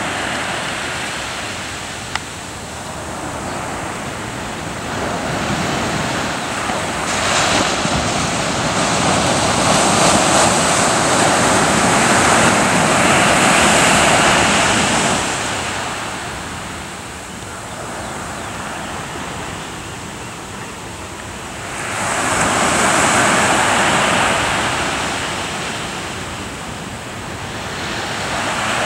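Ocean surf washing onto a sandy beach. The rush of the breaking waves swells and fades in long surges, building twice: about a third of the way in and again around three quarters of the way through.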